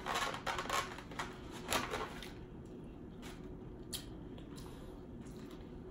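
Crackling and clicking as a sandwich is handled and lifted out of a black plastic takeout clamshell, busiest in the first two seconds, then a few scattered clicks.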